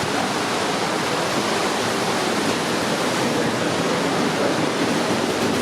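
Nankai Koya Line electric train running, a steady noise of wheels on rail heard inside the passenger car.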